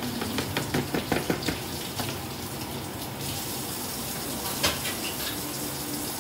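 A quick run of light knocks as minced meat is tapped and scraped out of a foam tray into a glass bowl, over a steady rushing kitchen noise, with one more sharp clink a few seconds later.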